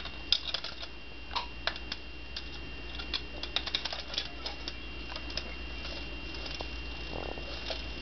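Green-cheeked conure's feet and claws tapping on a solid plastic hamster wheel as it runs, an irregular scatter of light clicks that bunch up about three to four seconds in.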